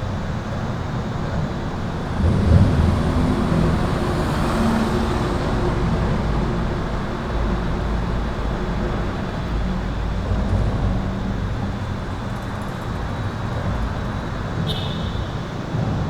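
Highway traffic rumbling steadily under and over a concrete overpass, tyres and engines blending into a continuous roar, with a louder vehicle passing about two to three seconds in. A thin, steady high electrical hum runs under the traffic the whole time.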